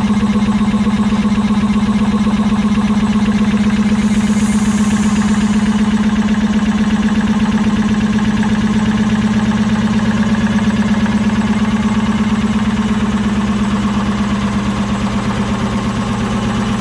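Old stationary engine running steadily with an even, rapid beat of firing strokes, dipping slightly in level near the end.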